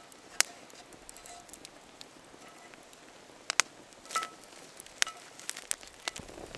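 Wood campfire crackling, with scattered sharp pops. Around four seconds in, a short metallic clink as the cast iron frying pan is set down over the fire.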